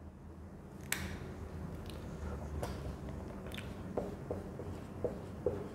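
Marker writing on a whiteboard: a few short, faint strokes in the last two seconds, after some soft scattered clicks and taps, over a low room hum.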